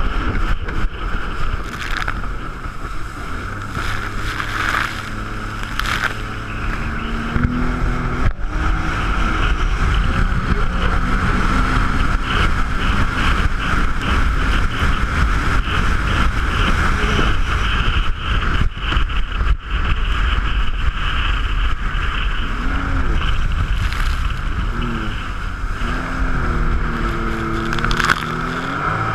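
Jet ski engine running under way, its pitch shifting up and down with the throttle, most noticeably about seven seconds in and again in the last few seconds, over a steady rushing noise.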